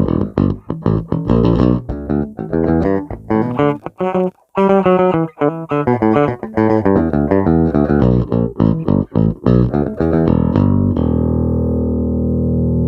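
Fender Player Plus Meteora electric bass played on its bridge pickup alone, through an iRig interface: quick runs of plucked notes with a short break about four seconds in. Near the end a long note rings out.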